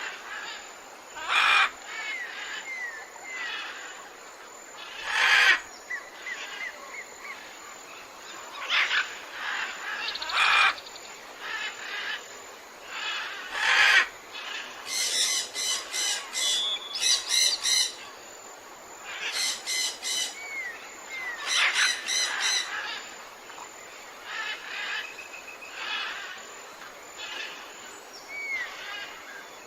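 Mixed calls of exotic tropical forest birds: loud, harsh calls every few seconds, short gliding whistles, and two runs of rapid repeated high notes around the middle.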